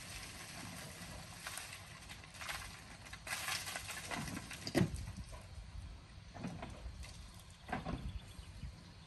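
Scattered knocks and clunks from coaling work on a steam tank locomotive, about seven irregular strikes over a low steady rumble, with a short hiss about three and a half seconds in.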